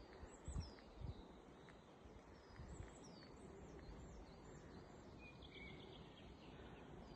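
Faint songbird calls: many short, high chirps, several of them falling in pitch, repeating on and off over a low rumble.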